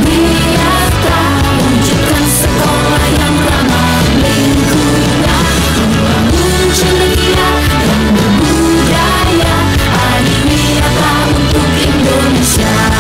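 Loud amplified band music with a standing crowd singing along in held, sustained notes over a steady bass.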